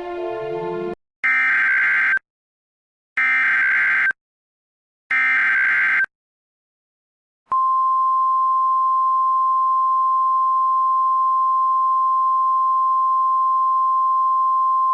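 Emergency Alert System alert opening: music cuts off about a second in, then three SAME header data bursts, each a buzzy warbling screech of about a second with about a second of silence between them. About seven and a half seconds in, a loud steady single-pitch attention tone near 1 kHz starts and holds to the end.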